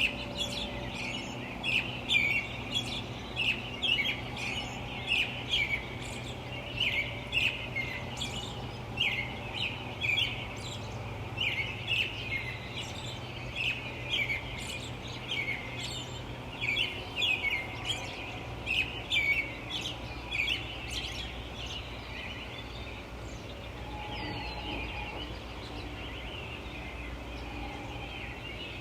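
Small birds chirping in quick, overlapping bursts over a steady low rumble of distant light traffic. The chirping thins out about three quarters of the way through.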